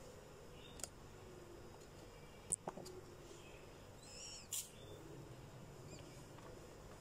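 Small kitchen knife cutting apricots in the hand over a wooden chopping board: a few soft clicks and taps, the sharpest about two and a half seconds in, over quiet room tone.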